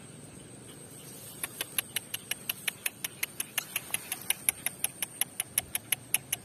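A fast, even series of sharp high clicks, about six a second, starting about a second and a half in, over a faint steady high-pitched whine.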